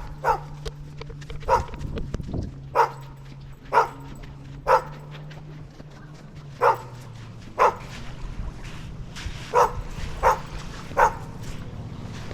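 A dog barking repeatedly: about ten sharp single barks, roughly a second apart, with a couple of longer pauses.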